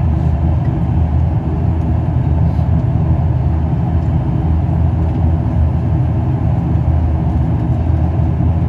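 Jet airliner heard from inside the cabin while the plane taxis: a steady, loud low rumble of engines and wheels on the ground, without change in level.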